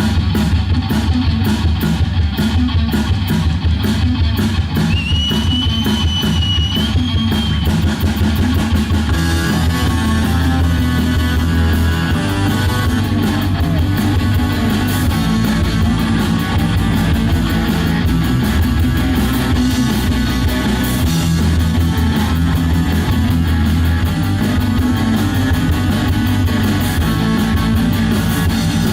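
Rock band playing the instrumental opening of a song live: electric guitars over a drum kit, with a short gliding high guitar line about five seconds in.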